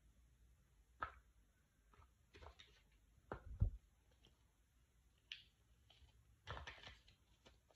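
Hands handling iPhone packaging: scattered light taps and short paper-and-cardboard rustles, with a pair of soft thumps about three and a half seconds in as the phone is set down on the cloth-covered table.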